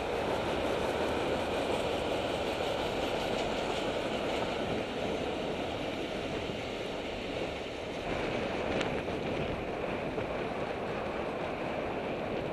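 Steady rushing noise from a moving bicycle in city traffic: wind over the camera's microphone and road rumble, with the traffic alongside blended in.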